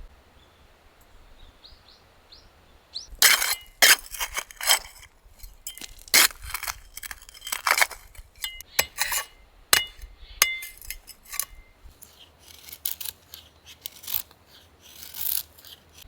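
A string of sharp clinks and knocks of hard objects handled one after another, a few with a short metallic ring.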